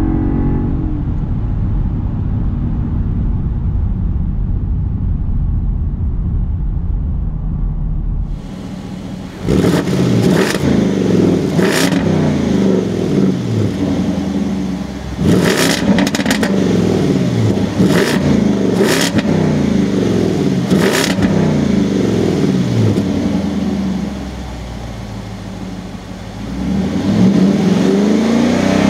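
Land Rover Defender 110's supercharged 5.0-litre V8. It is first heard inside the cabin as a low steady drone while driving, then at the quad-tip exhaust as a series of free revs, each falling away with sharp pops and crackles. It settles to a quieter idle for a couple of seconds, then revs once more near the end.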